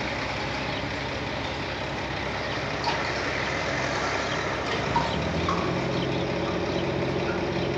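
A heavy truck's engine idling steadily over constant outdoor background noise. The engine's low hum stands out more clearly from about five seconds in.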